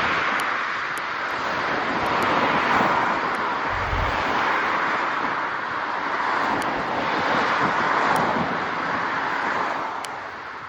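Steady rushing wind and road noise on a moving bicycle, swelling twice and easing near the end, with a brief low thump about four seconds in.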